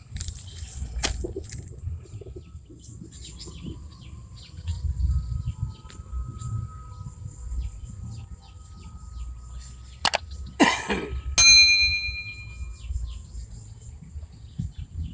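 Outdoor pond-side ambience: scattered bird chirps over a steady high hiss and a low wind rumble on the microphone. A few sharp clicks stand out, the loudest about eleven seconds in, followed by a short metallic ring.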